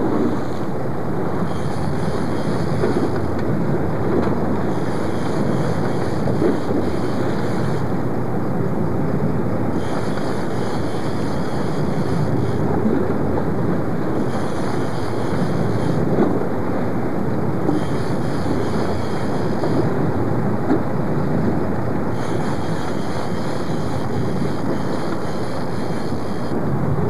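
Steady wind rushing over the camcorder microphone aboard a fishing boat at sea, with the boat and water noise underneath.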